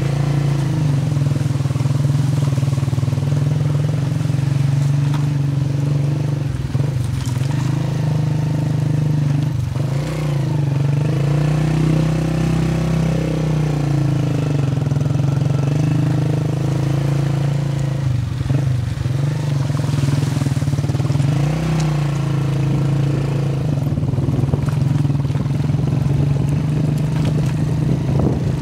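A vehicle engine running steadily while driving, its pitch rising and dipping slightly a few times.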